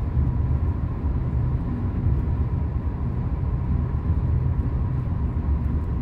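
Steady low rumble of a car travelling at highway speed: tyre and road noise with the engine underneath.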